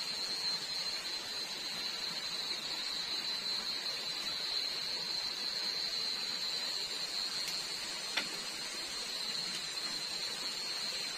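Night forest ambience: a steady high-pitched insect chorus over the even rush of flowing stream water, with a single sharp click about eight seconds in.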